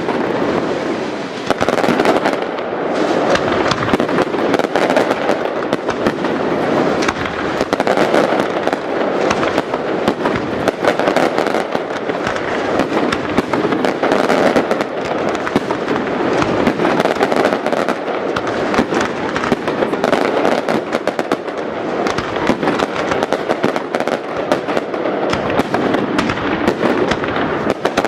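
Fireworks display firing a dense, continuous barrage of bangs and crackles, with no let-up.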